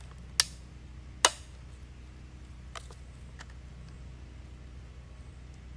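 Two sharp clicks a little under a second apart, then a couple of fainter ticks, over a low steady hum.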